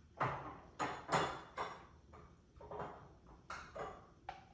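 Kitchenware being handled while juice is measured and mixed: several separate light knocks and clinks, each fading quickly.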